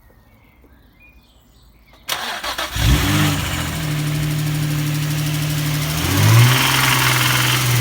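Nissan 350Z's 3.5-litre V6 cranked by the starter about two seconds in, catching with a quick rev flare and settling into a steady idle. A short rev blip about six seconds in, then back to idle.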